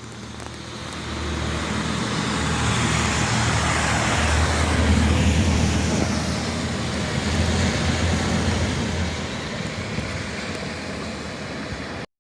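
A road vehicle driving past: engine and tyre noise build up, peak about four or five seconds in, then fade away, the pitch dropping as it passes.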